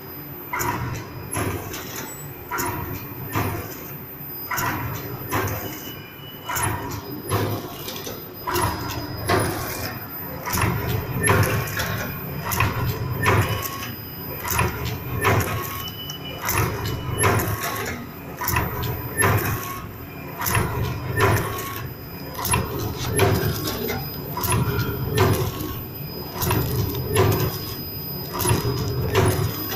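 Small vertical powder stick-bag packing machine running: a steady hum with repeated sharp clicks and clatter, rising and falling in a cycle of roughly once a second.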